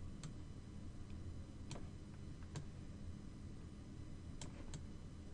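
Faint, scattered single clicks from computer controls, about five spread through the stretch, over a low steady hum.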